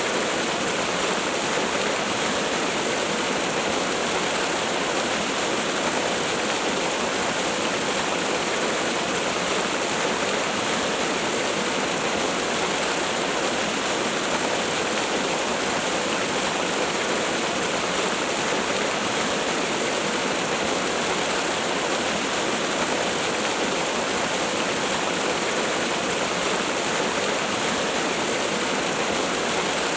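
Steady rushing of falling water from a waterfall, an even hiss with little deep rumble and no changes.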